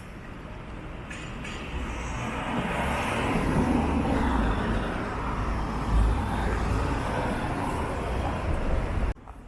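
Street traffic: a motor vehicle's engine and tyre rumble close by, building over the first few seconds and holding steady, then cutting off abruptly near the end.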